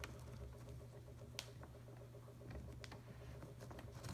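Faint handling of a baseball glove's leather lace as fingers work its knot loose: small scattered ticks and rustles, with one sharper click about a second and a half in, over a steady low hum.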